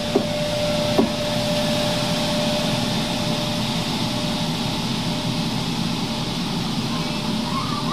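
ÖBB class 1144 electric locomotive with its regional train moving away: a steady running hum with a held whine, one last wheel clack over a rail joint about a second in. A faint wheel squeal begins near the end.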